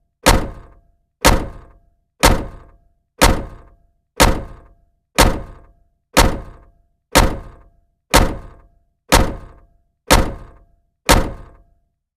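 A dull thud struck about once a second in a steady beat, twelve in all, each dying away quickly with a faint ring; the beat stops near the end.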